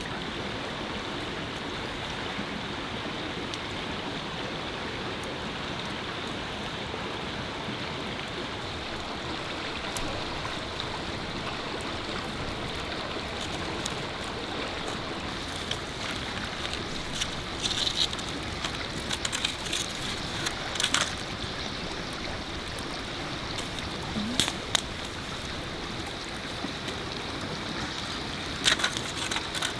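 Steady rushing of a flowing forest stream, with scattered short clicks and knocks over it from about halfway through.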